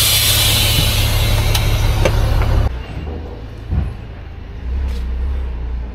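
Semi truck's diesel engine idling while its air brakes let out a long, loud hiss of air that cuts off abruptly about three seconds in. The engine then idles on more quietly, with a single thump near four seconds.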